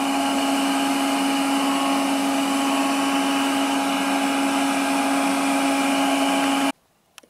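Hooded hair dryer running: a steady rush of blown air with a constant low hum, cutting off suddenly near the end.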